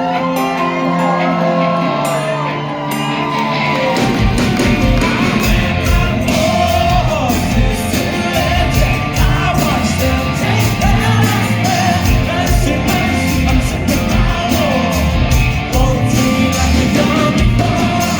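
Rock band playing live, heard from the venue floor: held guitar chords and singing at first, then drums and bass crash in about four seconds in, with shouted vocals over the full band.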